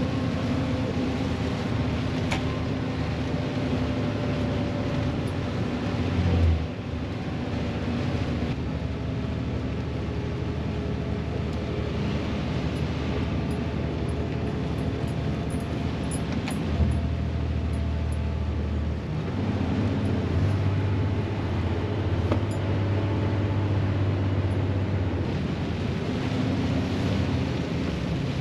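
Heavy truck's diesel engine running under engine braking on a long downhill, heard from inside the cab. The engine note shifts in steps a few times, with a short thump about six seconds in.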